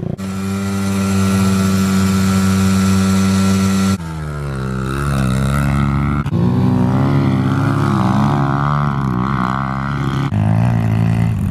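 Small dirt bike engines running in a string of short clips. One holds a steady pitch, the next revs up and down, then another runs fairly steadily.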